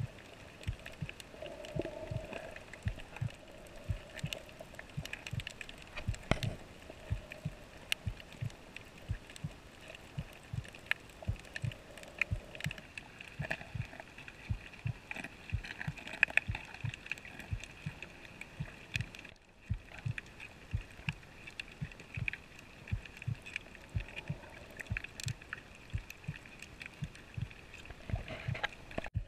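Underwater noise picked up by a camera below the surface: frequent soft low thumps, irregular at about two to three a second, over a faint steady hiss.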